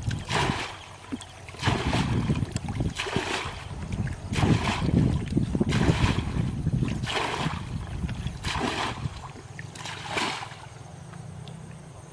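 Water being bailed out of a shallow muddy ditch with a plastic bucket: repeated scoops and throws, each ending in a splash, about one every second and a half, eight in all.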